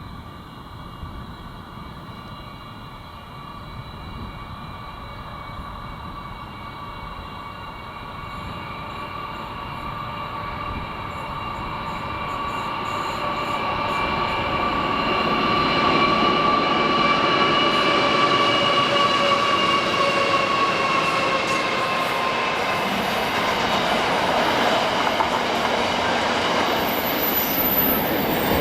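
A train approaching and passing close, growing steadily louder over about fifteen seconds and then holding. Several steady, high squealing tones from its wheels on the rails ride over the rumble and sag slightly in pitch as it passes.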